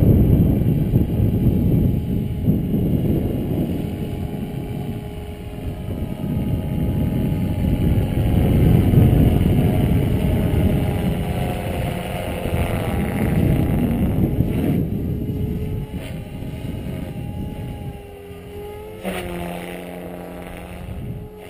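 Wind buffeting the microphone over the faint whine of an SAB Goblin 500 electric RC helicopter in flight, its pitch rising and falling as it manoeuvres. Near the end a steadier tone comes in abruptly.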